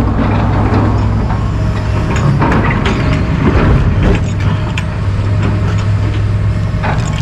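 John Deere track excavators' diesel engines running steadily with a low hum, with irregular clanks and scrapes as the steel buckets dig through dirt and broken concrete.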